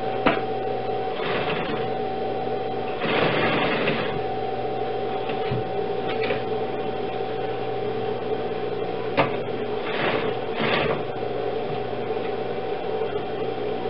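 Industrial single-needle sewing machine hemming cotton manta cloth: a steady motor hum runs throughout, with short louder runs of stitching, the loudest about three seconds in and another near ten seconds, and a couple of sharp clicks.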